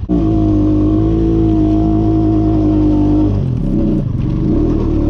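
ATV (four-wheeler) engine revving up suddenly and holding steady revs for about three seconds. The revs then drop and waver, rising and falling unevenly.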